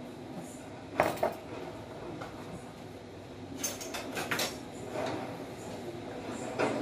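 Kitchen clatter: sharp knocks and clinks of pans and utensils over a steady background noise, two about a second in, a quick cluster a little past halfway, and a last knock near the end as a wooden spatula goes into the stainless steel pan.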